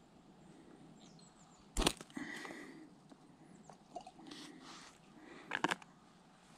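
Bait catapult loosed to fire sweetcorn out as loose feed: a sharp snap of the released band and pouch about two seconds in, followed by a brief rustle. A couple of smaller clicks follow near the end.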